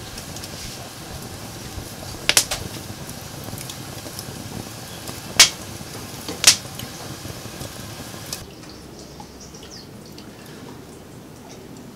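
Pine cones burning in a stove: flames hissing and crackling, with three sharp pops, the first about two seconds in. A little past the eight-second mark the crackle drops away to a quieter background with a few faint ticks.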